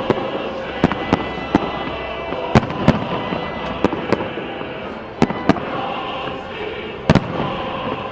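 Fireworks going off in an irregular string of sharp bangs, about a dozen in eight seconds, over a continuous background din.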